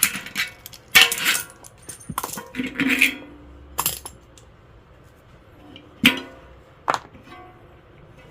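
A series of sharp metal clinks and knocks from tools and hub parts being handled during a bicycle hub overhaul, some ringing briefly. There are about half a dozen separate strikes, crowded in the first four seconds and then two more near the end.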